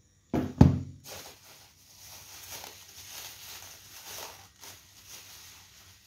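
Two quick thumps about half a second in, then thin plastic bags rustling and crinkling as bagged parcels are handled and pulled out of a cardboard box.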